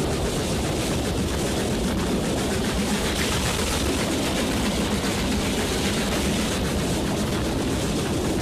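Steam locomotive hauling a train at speed, heard from a carriage window close behind it: a steady rushing noise of the running train, briefly brighter and louder about three seconds in.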